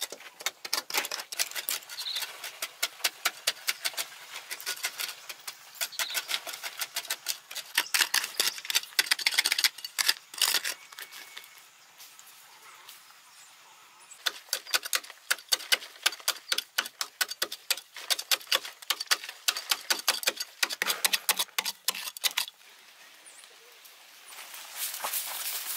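Hoes chopping and scraping into a hard clay earth wall, loose soil crackling and trickling down: dense runs of gritty scrapes and clicks, with a pause of a few seconds in the middle. A short soft rustle near the end.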